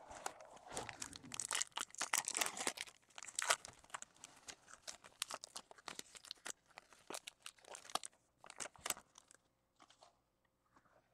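A trading-card pack's foil wrapper being torn open and crinkled by hand: dense crackling for the first three seconds or so, then sparser crackles that thin out near the end.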